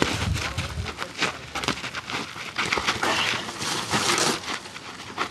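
Boxing sparring on dry dirt: sneakers shuffling and scuffing on the ground, with sharp taps and thuds of boxing gloves, and a longer scraping scuff about three to four seconds in.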